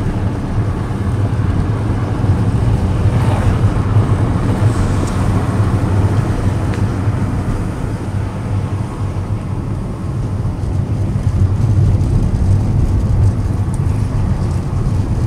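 Car driving, heard from inside the cabin: a steady low rumble of engine and tyres on the road, easing slightly about two-thirds of the way through.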